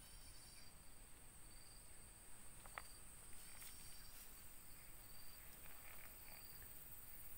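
Faint insect chorus: a steady high-pitched whine with short high chirps repeating about once a second.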